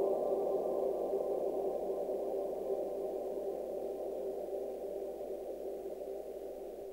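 A sustained drone of several held tones from the soundtrack, fading out slowly.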